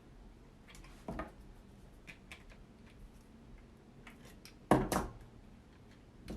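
Handling noise from wire and small hard parts being worked by hand: scattered light clicks and ticks, a knock about a second in and a sharper, louder clack about five seconds in.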